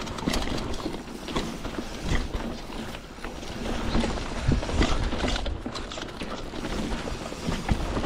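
Mountain bike riding downhill over dry dirt and rock: tyre noise on the trail with irregular knocks and rattles of the bike over bumps.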